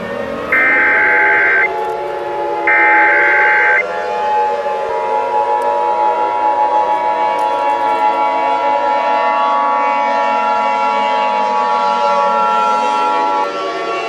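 Emergency Alert System alert: two harsh digital data bursts of the SAME header, each about a second long, the last ending about four seconds in; the header is announcing a Civil Danger Warning. The steady two-tone EAS attention signal follows and cuts off just before the end, over a siren wailing that slowly falls in pitch and rises again near the end.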